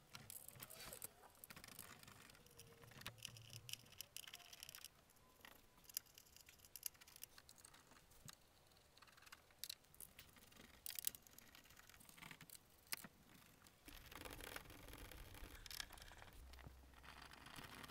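Faint scattered clicks, taps and scrapes of hands working at a car's plastic undertray and wheel-arch liner fasteners, getting a little busier near the end.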